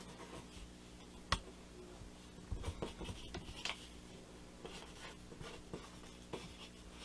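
Pencil scratching on paper in short, faint strokes as words are written, with scattered taps and knocks; the loudest is a sharp tap a little over a second in.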